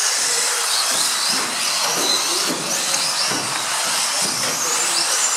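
Electric mini off-road RC cars racing: high-pitched motor and gear whine rising and falling in pitch as they accelerate and slow, over a steady hiss, loud enough to be called an insane racket.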